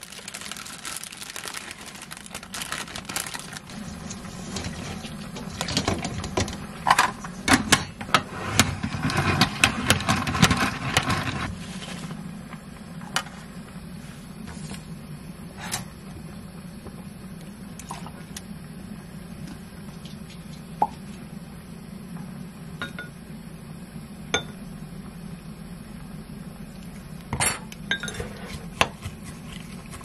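Kitchen prep sounds: a busy run of handling noise and knocks for about the first twelve seconds, then a scattering of light clinks as spoons touch a glass mug while sauce ingredients are spooned in.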